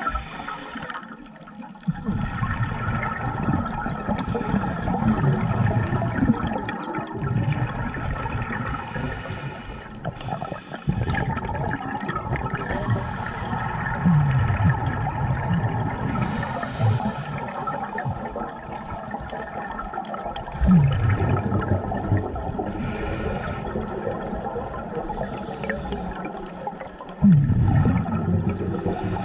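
Scuba diver breathing through a regulator underwater: long rushes of exhaled bubbles, broken by a few short pauses for the inhale.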